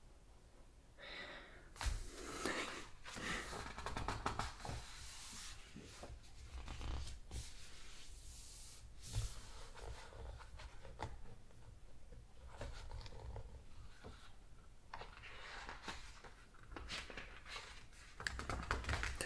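Pages of a large hardcover photo book being turned and smoothed by hand: papery rustles and swishes in several bouts, with a few sharp taps.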